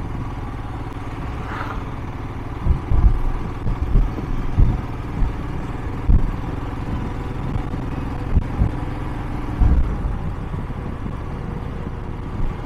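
Royal Enfield Himalayan's single-cylinder engine running steadily at highway cruising speed, heard from the riding position. Wind buffets the microphone in loud low gusts from about three seconds in until near the end.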